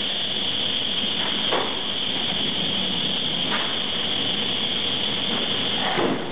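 Automatic loading/unloading machine with pneumatic grippers running: a steady mechanical hiss with a high whine, and three short noises about two seconds apart as the handling arms work.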